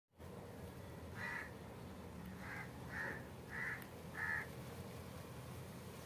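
Five short animal calls, coming roughly every half second to second between about one and four and a half seconds in.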